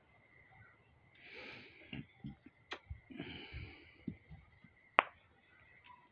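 Two breathy exhales close to the microphone, with scattered soft thumps over a faint steady high tone, and one sharp click about five seconds in, the loudest sound.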